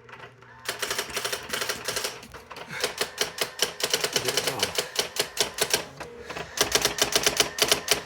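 Brother GX-6750 electronic daisy-wheel typewriter typing: rapid strings of sharp key strikes begin about a second in, ease off briefly near six seconds, then pick up in a quick burst.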